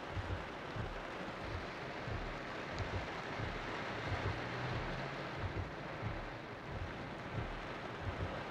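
Steady rain, with the low hum of a car's engine and the wash of water as a car drives slowly through floodwater covering the road.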